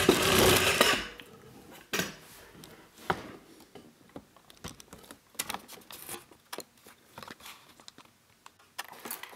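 Handling noise from a disassembled pin tumbler lock on a table: a second of rubbing, then scattered light clicks and taps of small metal parts being moved.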